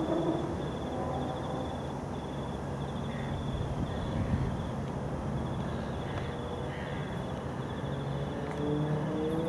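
A cricket chirping outdoors at night in short, evenly repeated high trills, over a steady low background rumble. Near the end a low hum slowly rises in pitch.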